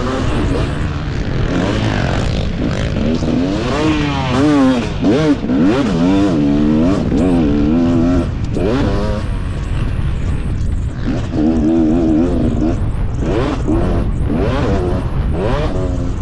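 KTM 250 two-stroke motocross bike engine revving hard, its pitch repeatedly climbing and dropping as the rider works the throttle and shifts around the track, held steadier for a second or so midway, with wind rushing over the helmet camera's microphone.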